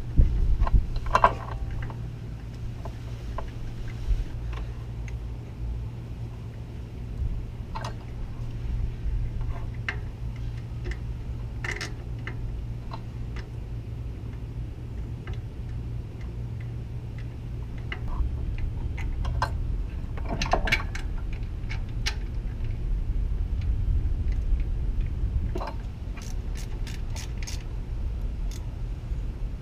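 Hand tools and metal parts clinking and knocking while a power steering pump is bolted back onto a car engine, with a quick run of ratchet-like clicks near the end, over a steady low hum.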